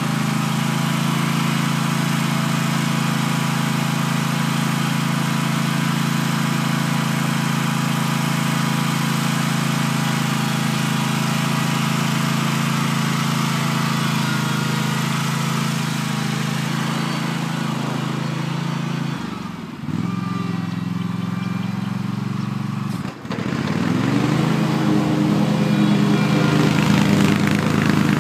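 Engine of a 2011 Hustler Super Z zero-turn mower running at full speed with a steady note, out of sight. About two-thirds through it dips briefly twice, then grows louder as the mower comes back.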